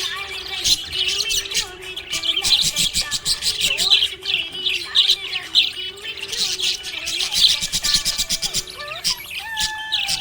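Budgerigar chirping and warbling: a rapid, continuous run of short high chirps with no pauses.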